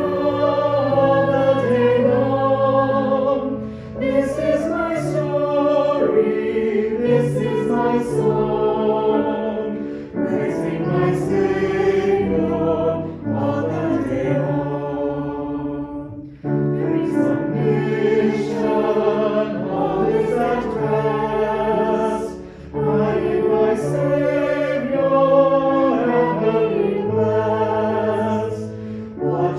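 A choir singing a sacred song in phrases of about six seconds, with brief breaks between them.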